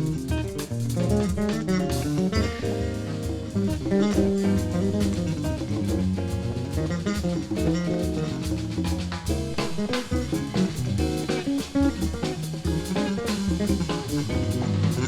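Live instrumental band music in a choro and samba-jazz vein: guitar playing over bass and drum kit, with a steady beat.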